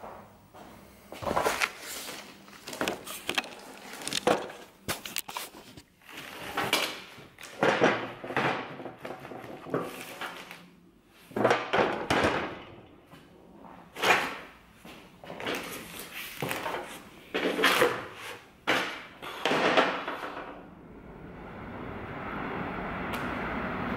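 Irregular knocks, clunks and scrapes of tools and parts being handled during work on a car's gearbox. Near the end a steady noise starts up and grows louder.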